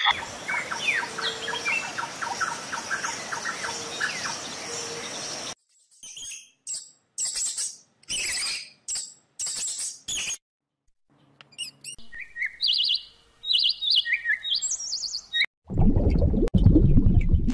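A string of separate animal-sound clips dominated by bird calls: a row of short calls over a hiss, then a series of short high squeaks with gaps between them, then quick chirps stepping up and down in pitch. Near the end a loud low rumbling noise takes over.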